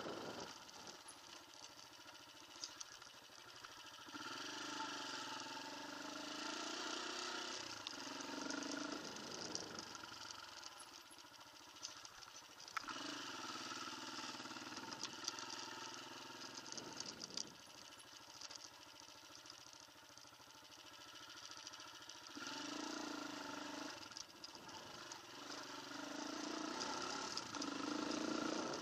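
Off-road motorcycle engine being ridden along a trail, its pitch rising and falling again and again as the throttle opens and closes, over a steady rushing noise and scattered rattles and clicks.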